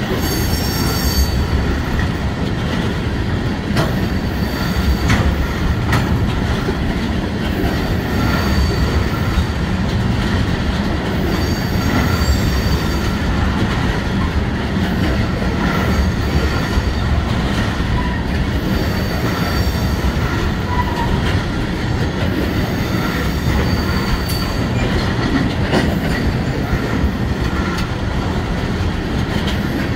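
Freight train cars rolling past at close range in a steady loud rumble, with high-pitched wheel squeals that come and go several times and scattered clacks from the wheels.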